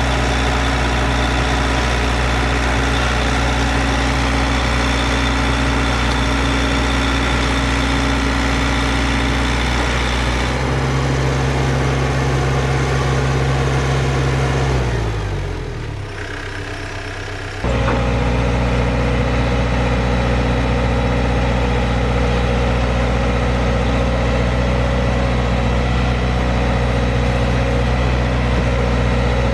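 Excavator diesel engine running steadily. About halfway through its pitch falls and the sound drops lower for a couple of seconds, then it comes back suddenly at full speed.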